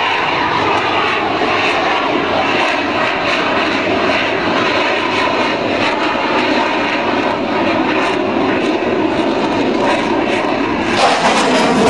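Fighter jet engine noise, a loud steady rush that grows brighter and sharper in the upper range near the end.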